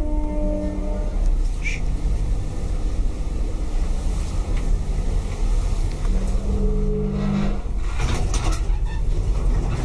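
KONE bottom-driven traction lift car travelling: a steady low rumble, with a short hum about seven seconds in.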